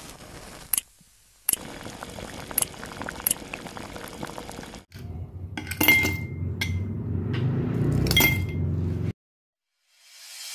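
Ice cubes tipped into an empty drinking glass, clinking against it several times with short glassy rings between about six and eight seconds in. Before that, a steady hiss with scattered light clicks; music begins fading in at the very end.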